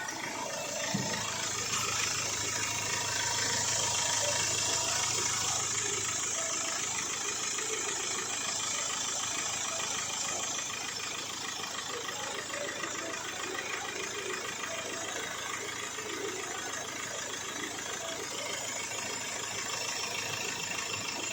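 Mahindra XUV500's rebuilt 2.2 L mHawk four-cylinder turbo-diesel engine idling steadily after its overhaul.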